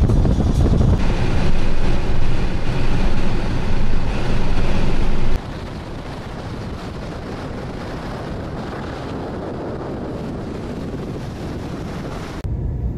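Wind buffeting the microphone over the steady road noise of a car driving at speed. The heavy low rush drops abruptly to a quieter steady rush about five seconds in.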